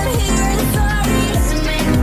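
Music playing, a dense instrumental mix with deep bass notes that drop in pitch.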